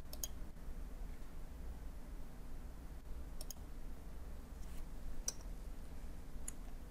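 Computer mouse buttons clicking now and then, a handful of sharp separate clicks, over a faint low hum from the microphone.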